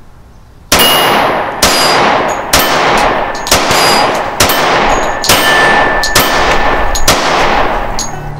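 Springfield Armory 1911 Garrison Commander-length .45 ACP pistol firing a string of shots, about one a second, each trailing off slowly.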